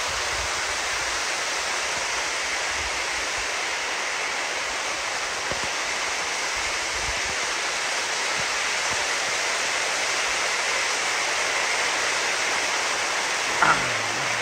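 Rainwater runoff rushing down a flooded arroyo in a steady rush. Near the end there is a brief, louder sound that slides down in pitch.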